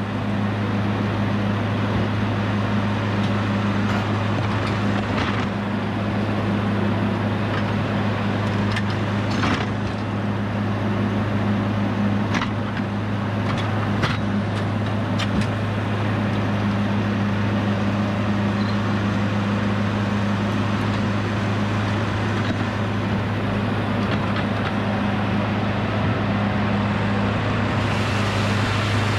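An engine running steadily at one constant speed, with a few light knocks about a third of the way through.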